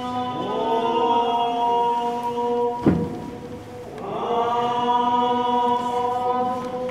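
A chanted mantra, sung as long held tones with sliding pitch curves, as part of the performance's music. A single sharp thump about three seconds in is the loudest moment, after which the chant briefly falls away and then returns.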